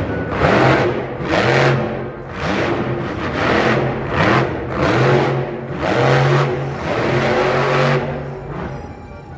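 Monster truck's supercharged V8 revving hard in repeated surges about once a second, as in spinning donuts. The revving stops about eight seconds in and the sound falls away.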